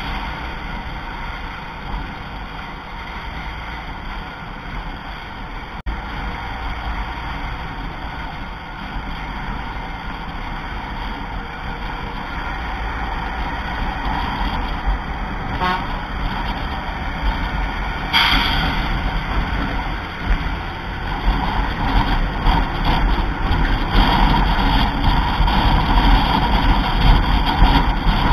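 Steady engine and road noise of a moving vehicle, heard from inside its cabin, growing louder in the last third, with short horn toots around the middle.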